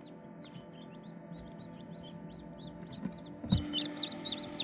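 Newly hatched serama chicks peeping. Scattered faint peeps give way, about three and a half seconds in, to a low thump and a fast run of loud, repeated peeps. The loud peeper is the chick the owner guesses is a male.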